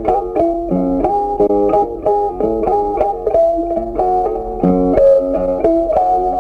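Background music: a plucked string instrument, like a guitar, playing a quick melody of many short notes.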